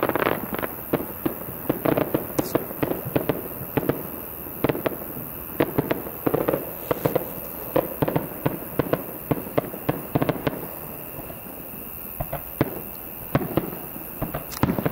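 Fireworks display: a rapid, irregular string of aerial shell bursts and bangs, thinning briefly about eleven seconds in before more loud bursts near the end.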